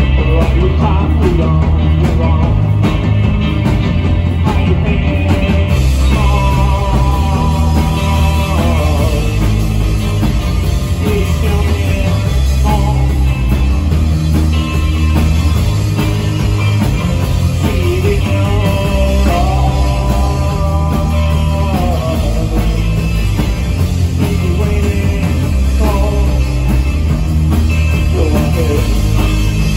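Rock band playing live and loud: electric guitar and bass guitar, with a man singing over them in several phrases.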